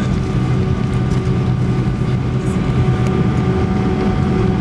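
Jet engines of an Airbus A319 running steadily, heard inside the passenger cabin: a continuous low drone with steady whining tones over it.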